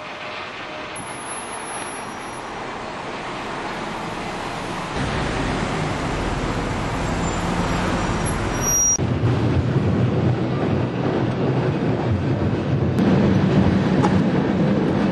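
A tram running, heard from on board as a steady rumble of wheels and street noise. It grows louder, stepping up about five seconds in and again about nine seconds in.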